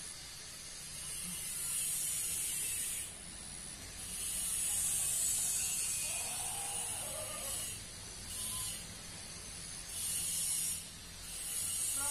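Cicadas buzzing in high, hissing waves that swell for one to three seconds at a time, with short breaks between them.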